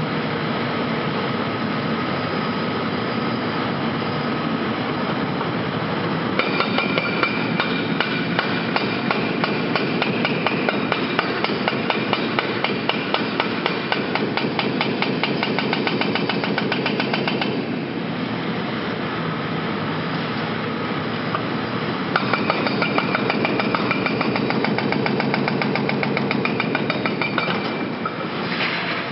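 Heavy demolition excavator at work, its engine running steadily throughout. Over it come two long spells of rapid, even hammering, one starting about six seconds in and stopping around seventeen, and another from about twenty-two to twenty-eight seconds.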